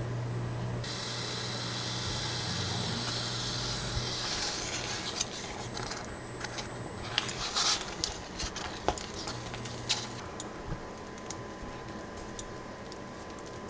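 Spatula stirring a thickening buckwheat starch paste in a stainless steel pot on the cooktop, over a steady low hum. A hiss fades after about four seconds, and from then on the spatula makes irregular soft clicks and scrapes against the pot as the paste gets stiff.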